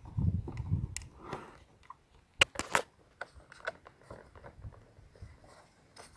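Hands handling a robotic lawnmower's plastic spiked drive wheel and wheel housing: scattered small clicks and crunchy rustles, with a few sharper clicks about two and a half seconds in. A low rumble fills the first second.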